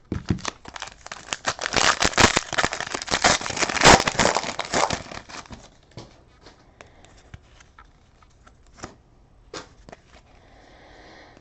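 Plastic wrapper of a trading-card pack crinkling and tearing as the pack is opened, with dense crackling for about six seconds. After that, only a few faint clicks of cards being handled.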